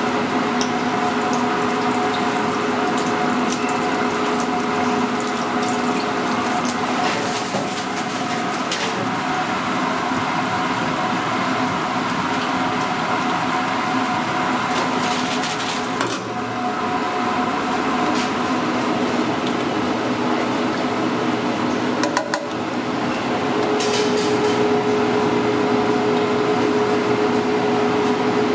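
Hot oil bubbling and sizzling in a commercial deep fryer as blue corn tortilla pieces fry into chips, over a steady machine hum, with a few brief knocks.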